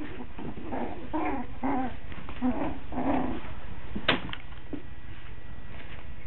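Coton de Tulear puppies growling and yipping as they play-fight, in a run of short calls, followed by a single sharp click about four seconds in.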